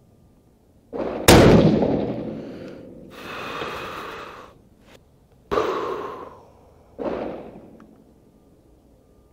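A single rifle shot from a Howa 1500 in 6.5 PRC fitted with a Thunder Beast muzzle brake, a very loud sharp bang about a second in with a long fading tail. A rough rasping noise follows, then two quieter sharp bangs, each with a shorter fading tail, in the second half.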